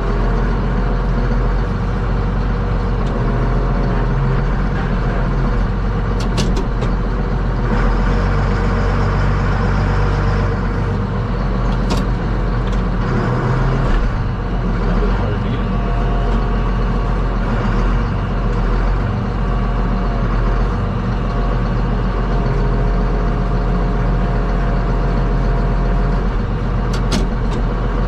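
Power-shift farm tractor's engine running steadily, with a few brief clicks.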